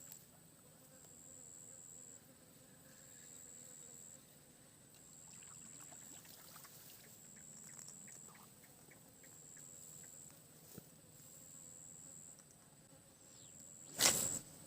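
An insect calling in a high, thin buzz that switches on and off about every two seconds, over quiet swamp ambience, with one short loud noise near the end.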